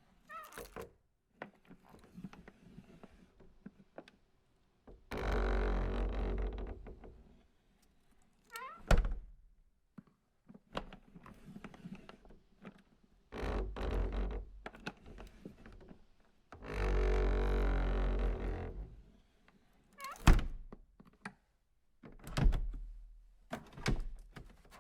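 Buzzing vibration in several separate bursts, each about one to two seconds long, with short, sharp thunks between them.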